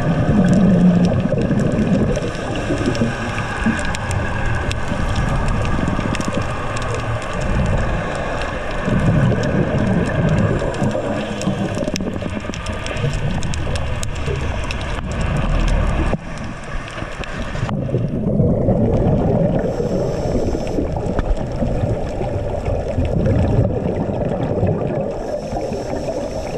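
Underwater camera sound: scuba exhaust bubbles gurgling in low swells every few seconds over a steady rushing hiss. The sound shifts abruptly near 18 s.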